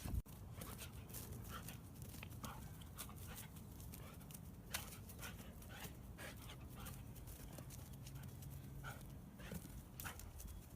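A dog panting and scuffling while it play-fights, with irregular short clicks and taps throughout.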